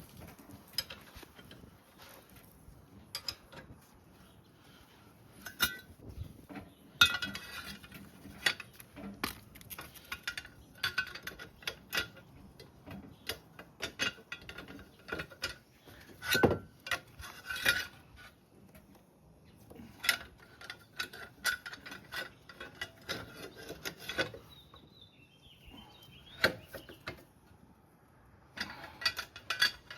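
Hand ratchet wrench clicking in short bursts of rapid ticks, with scattered clinks and knocks of metal tools and parts.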